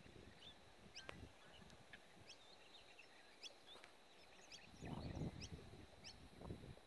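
Faint, scattered chirping calls of many birds over the lake. A brief low rumble on the microphone comes about five seconds in.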